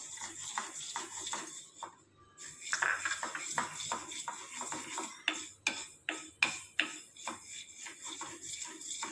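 Mustard seeds being stirred with a wooden spatula as they dry-roast in an iron kadhai: a dense, irregular run of sharp clicks and scrapes from the seeds and spatula against the pan, with a brief lull about two seconds in.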